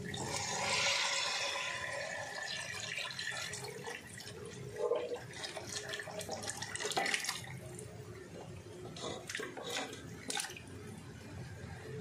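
Chicken stock poured in a steady stream into a kadhai of masala paste fried in oil, splashing loudest in the first couple of seconds, then a few light clicks and knocks in the second half.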